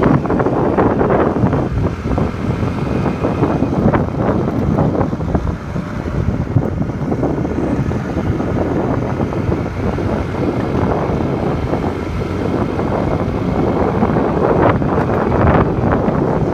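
Strong wind buffeting the microphone, a loud, steady rumbling noise.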